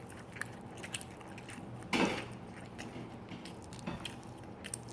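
A person chewing sundae (Korean blood sausage) with the mouth close to the microphone: quiet, scattered wet clicks, with one louder short sound about two seconds in.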